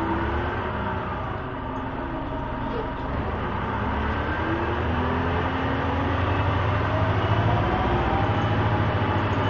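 Inside a 1999 Orion V city bus under way: a steady engine and road rumble. A whine rises in pitch through the second half as the bus picks up speed.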